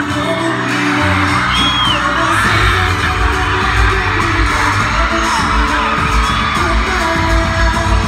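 K-pop dance track played loud over a concert hall's sound system, with a heavy bass beat coming in about two seconds in. Shrill fan screams rise over the music a couple of times.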